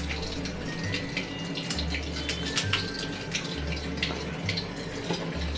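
Tap water running onto hands and a crab piece being rinsed over a stainless steel sink, with small splashes and clicks of handling. Background music with a steady low beat plays underneath.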